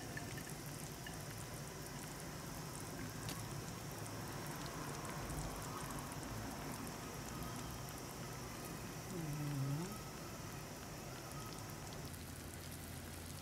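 A pot of pork sinigang broth simmering steadily, with a continuous fine bubbling and crackle of small bubbles breaking at the surface.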